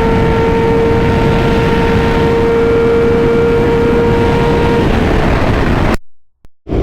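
Yamaha R6 sport bike ridden at speed: heavy wind rush over the engine, which holds a steady tone for about five seconds before it fades into the wind noise. The sound cuts out abruptly for under a second near the end.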